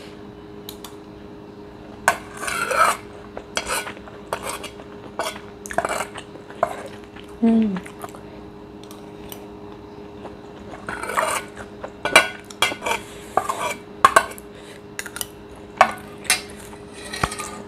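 Metal spoon clinking and scraping against a ceramic bowl while the last of the fried rice is scooped up, in short irregular strokes with pauses between them.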